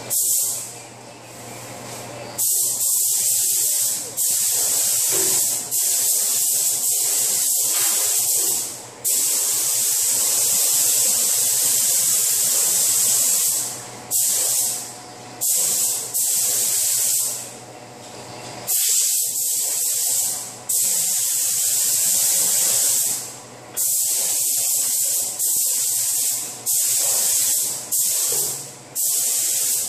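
Compressed-air paint spray gun hissing as base coat is sprayed onto the underside of a car hood, in a long run of passes of a few seconds each, the hiss cutting off briefly between them as the trigger is let go.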